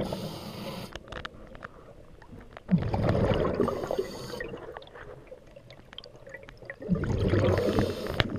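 Scuba diver breathing through a regulator underwater: a bubbling rush of exhaled air about every four seconds, each with a short hiss of the regulator.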